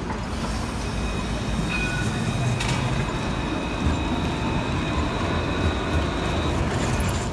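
Luas Alstom Citadis tram passing on street-running rails: a steady rumble of wheels and running gear, with a thin high whine holding for a few seconds in the middle.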